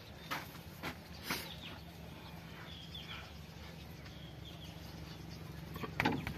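Birds chirping faintly in the background over a steady low hum, with a few light metal clicks from small parts being handled on the tractor's hydraulic valve plate, the loudest about six seconds in.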